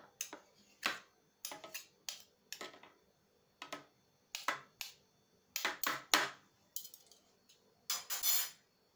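Metal spoon scraping and tapping against a plastic food-processor bowl as thick tomato and pepper paste is scooped in and knocked off. It is a string of short clicks and scrapes, with a longer, louder scrape near the end.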